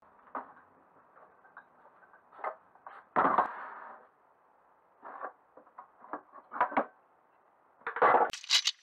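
Old rusty metal hand tools clinking and rattling as they are shifted about in a plastic toolbox tray, in scattered knocks with two louder clatters, about three seconds in and near the end, the last one ending in sharp bright clinks.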